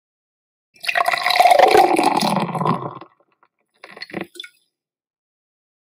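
Beer pouring from a draught tap into a small taster glass for about two seconds, then a brief second spurt about a second later.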